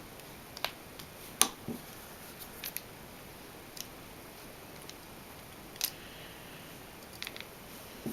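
Small sharp clicks and taps of a precision screwdriver and tiny screws being worked on a camera lens during disassembly, a dozen or so scattered ticks with two louder ones, and a louder knock right at the end.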